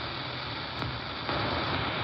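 Hiss and static from a Belka-DSP shortwave receiver, played through a Bose SoundLink Mini II speaker, as it is tuned upward in AM between stations. The hiss steps up in level about a second and a quarter in.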